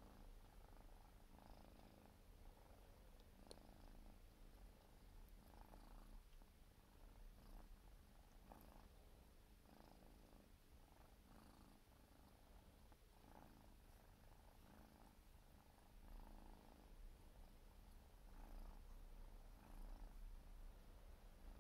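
Siberian kitten purring faintly and steadily while it grooms itself, with soft licking strokes about once a second.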